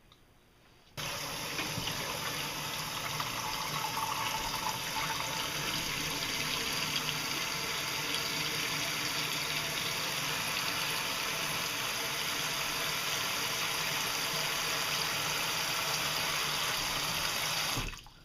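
Water running steadily from a tap, turned on about a second in and shut off near the end.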